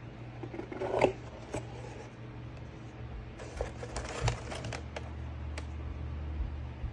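Cardboard box and packing being handled: a box lid opened, with paper and card rustling and crinkling, broken by a few sharp taps and clicks.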